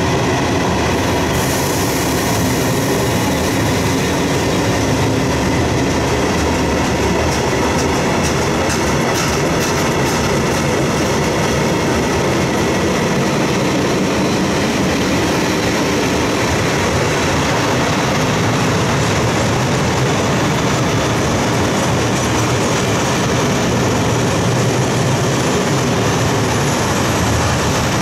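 Loaded flat wagons of a long freight train rolling slowly past close by: a steady rumble and rattle of wheels on the rails, with a faint high squeal of wheels.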